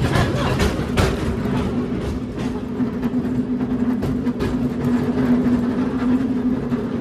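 San Francisco tram running on its rails: a steady rumble with rattling knocks in the first second and again around the middle, and a hum that grows stronger in the second half.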